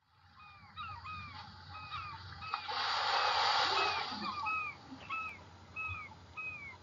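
A flock of gulls calling, many short arched cries overlapping one another, with a rush of noise like a breaking wave about three seconds in.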